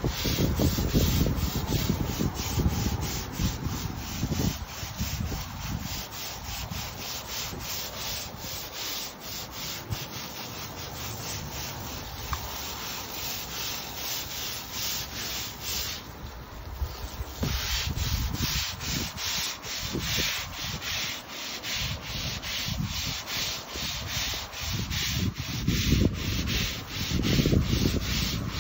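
Stiff brush scrubbing wet composite deck boards in quick back-and-forth strokes, about three a second, with a short pause about halfway through.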